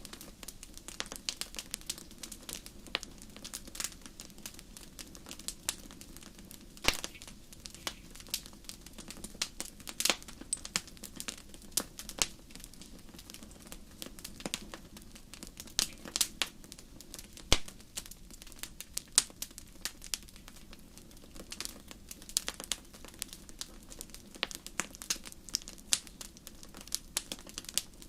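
Wood fire burning in a fireplace, crackling with dense, irregular snaps and pops over a steady low rumble; a few pops stand out much louder than the rest.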